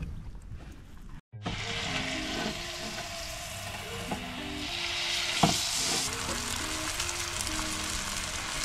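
Oil sizzling in a cast-iron skillet, starting about a second in, with a much louder sizzle around the middle as whitebait fritter batter goes into the hot pan, and a couple of light clicks.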